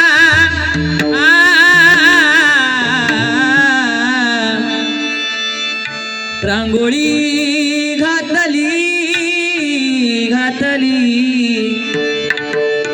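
Devotional bhajan singing: a singer holds long, wavering, wordless notes over a steady instrumental drone, with hand-drum strokes. The voice dips about six seconds in and starts a new phrase.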